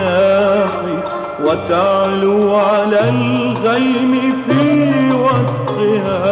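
Middle Eastern-style music from a religious nasheed recording: an ornamented, wavering melody over held low notes that change about every second and a half.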